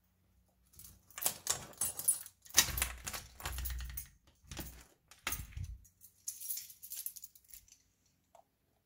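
Metallic rattling and clicking of a lever door handle and latch as a door is worked open, in several bursts, followed by a lighter metallic jingle.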